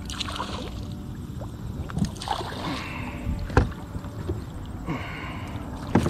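A hooked carp thrashing and splashing at the surface beside a small plastic fishing boat. Several sharp knocks are heard, the loudest about halfway through and another near the end.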